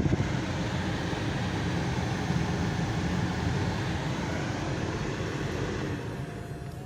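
Luzar replacement heater blower fan in a Chevrolet Aveo T300, running at its top (fourth) speed: a steady rush of air, without a whistle. It begins to die down near the end.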